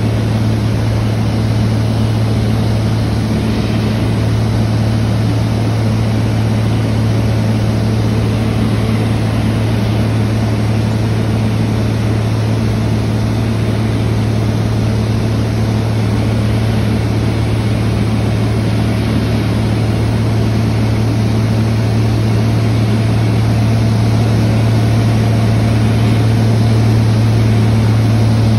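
High-wing, strut-braced light aircraft in level flight, heard from the cabin: a steady piston engine and propeller drone with a strong low hum, over rushing wind noise.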